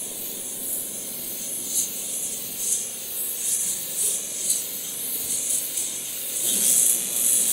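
Handheld corona treater (plasma wand) running: a steady high-pitched hiss from the corona discharge at its wire electrode, rising and falling in level as it is swept back and forth. This is the surface-activation step that readies the PDMS chip and glass slide for bonding.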